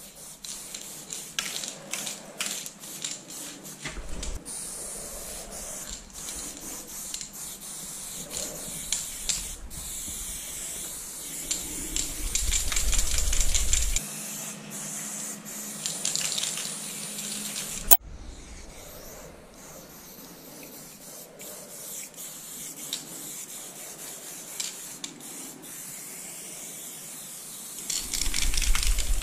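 Aerosol spray paint can hissing as paint is sprayed onto a wall, in spurts of varying length with scattered small clicks in between.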